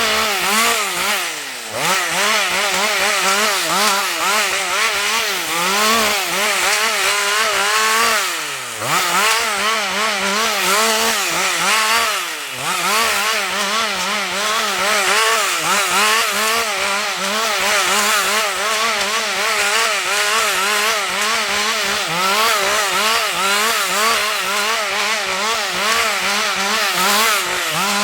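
Husqvarna 562 XP two-stroke chainsaw running at high revs with a wavering pitch. Its revs drop sharply and climb back three times, about a second and a half, eight and a half and twelve and a half seconds in.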